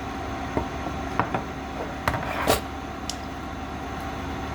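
A few light clicks and knocks of kitchen utensils, the loudest about two and a half seconds in, over a steady background hum.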